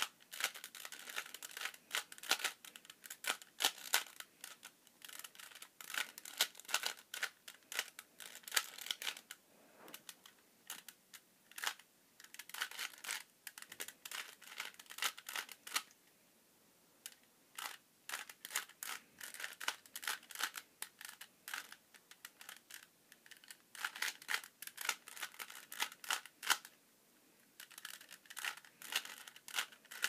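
A 3x3 Rubik's Cube turned rapidly by hand: dense plastic clicking and clacking of the turning layers, in bursts of several seconds with short pauses between, the longest about halfway through.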